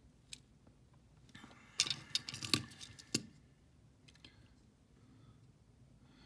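Matchbox die-cast toy cars clicking and clattering as they are handled and moved on a tabletop, with a short burst of sharp metallic clicks about two to three seconds in.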